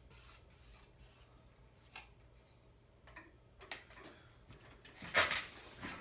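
A hand brushing and knocking against the turning blades of a Hunter Original ceiling fan to slow it to a stop: scattered short rubs and knocks, the loudest about five seconds in, over a faint low hum.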